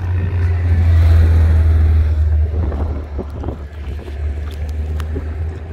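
Wind buffeting the phone's microphone: a heavy, unpitched low rumble, loudest in the first two seconds, then easing.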